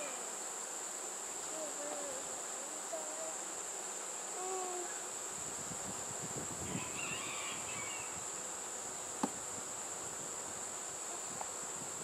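A steady high-pitched insect chorus, with honey bees buzzing past in short wavering passes during the first few seconds. A single sharp knock of a wooden hive frame comes about nine seconds in.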